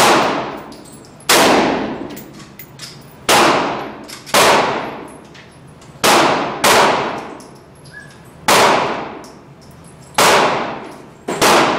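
About nine gunshots fired one at a time at uneven intervals of roughly one to two seconds, each a sharp crack followed by a long ringing decay.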